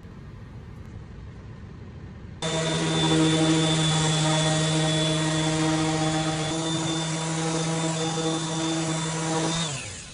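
Electric random orbital sander fitted with a 320-grit disc, sanding a pine board: a steady motor hum with sanding hiss starts suddenly about two and a half seconds in. Just before the end the motor is switched off and winds down, falling in pitch.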